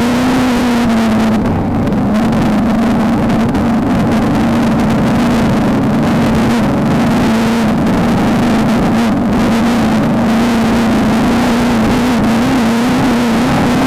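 VW Beetle desert race car's engine running at high, fairly steady revs, the pitch dipping and rising only slightly, over a constant loud rushing noise.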